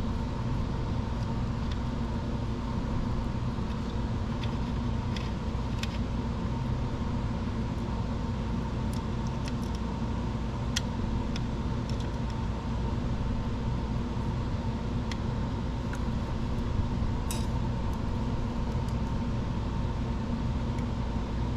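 A steady background hum runs throughout, with a faint held tone. Over it come scattered light clicks and taps of small metal screws and tools being handled during work on a 3D printer's power supply.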